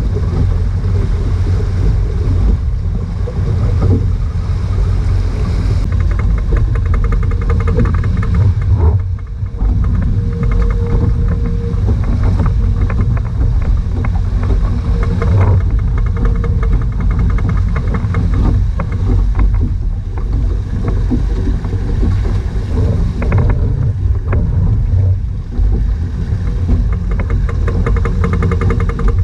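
Wind rumbling on the microphone of a catamaran under sail, with water rushing past the hulls.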